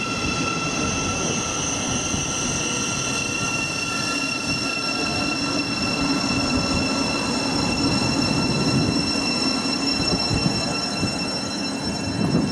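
Great Northern Class 717 electric multiple unit running past, a steady high-pitched whine held over the low rumble of its wheels on the rails.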